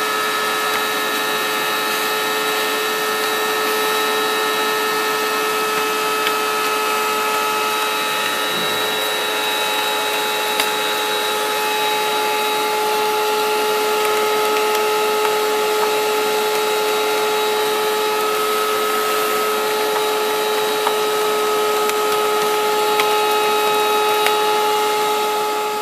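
Vacuum cleaner running steadily, its hose nozzle cleaning dust off a television's circuit board. It holds a constant whine over the rushing air, with a few light ticks.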